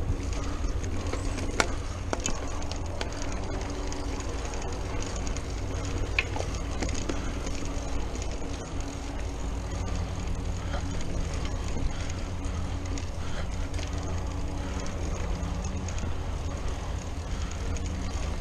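Mountain bike rolling fast down a dirt singletrack, heard from a chest-mounted camera: a steady low rumble of wind buffeting the microphone and tyre noise, with scattered rattles and sharp knocks from the bike over bumps, a loud one about one and a half seconds in.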